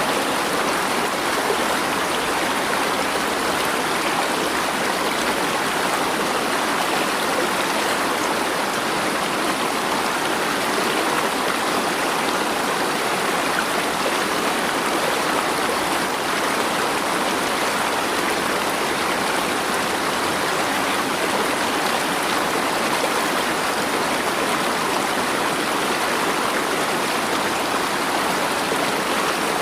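Flowing water, a steady, even rush that does not change.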